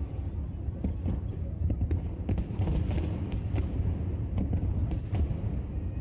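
Fireworks going off: a continuous low rumble of bursts with many short sharp cracks scattered throughout.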